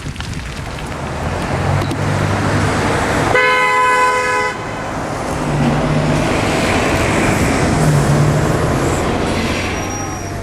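Road traffic with engines passing and swelling by, and a car horn honking once for about a second, a little over three seconds in.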